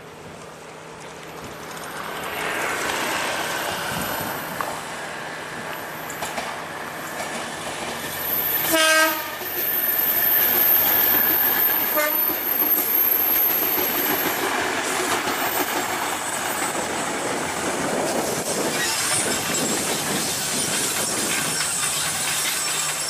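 KA Bandara YIA Ekspres diesel multiple unit approaching and running past, its wheels clattering over the rails. It sounds one short horn blast about nine seconds in, then a brief faint toot about three seconds later. A thin high wheel squeal runs over the middle as it rounds the curve.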